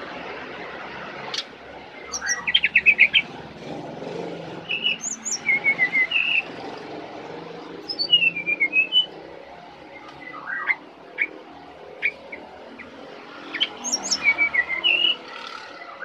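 Brown-chested jungle flycatcher singing: short phrases of quick, high chirping notes, some sliding down and back up in pitch, given about five times every two to three seconds.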